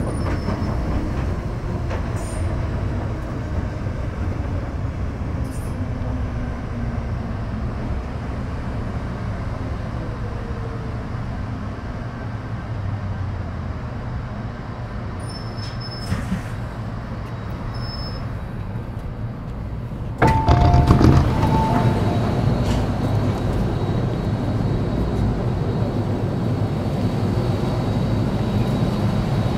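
Metro Cammell M-Train electric multiple unit with GEC GTO chopper traction running between stations, heard from inside the car: a steady rumble of wheels on rail. About two-thirds through, the running noise suddenly gets louder, with a short tone at that moment.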